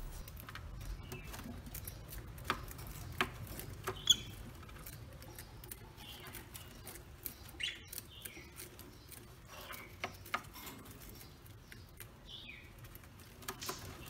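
Caged rosy-faced lovebirds: scattered short high chirps among many small clicks and taps, with a few sharper clicks between two and four seconds in.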